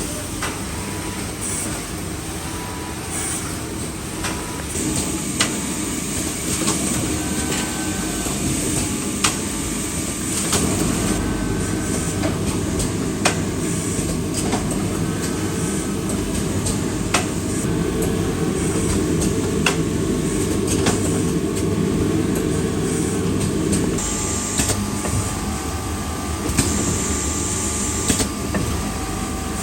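Garment factory machinery running: a steady, dense mechanical din with scattered sharp clicks and a few faint steady tones, louder through the middle.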